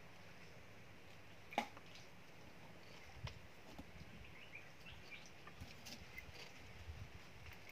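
Quiet riverside ambience: faint scattered bird chirps and a few small clicks and knocks, the sharpest about a second and a half in.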